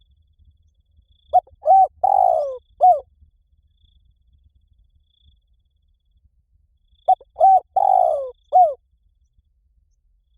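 Spotted dove cooing in the 'liu tan' style used to lure and train other doves: two phrases about six seconds apart, each of four notes, the third longest and falling in pitch.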